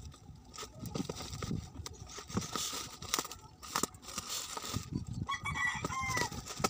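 Plastic parcel wrapping crinkling and rustling as it is handled and pulled at, with scattered small clicks. A rooster crows once, about five seconds in.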